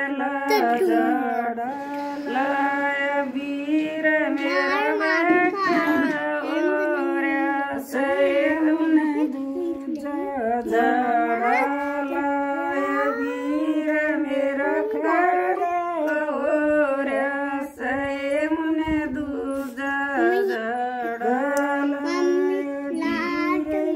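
Women singing a Haryanvi folk song without accompaniment, in a continuous sung line with long held notes.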